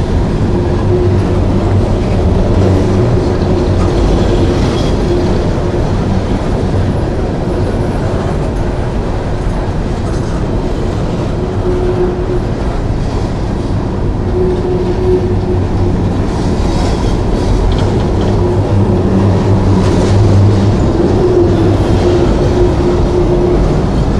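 Empty coal hopper cars of a long freight train rolling steadily past: a continuous rumble of steel wheels on the rails, with a humming tone that comes and goes.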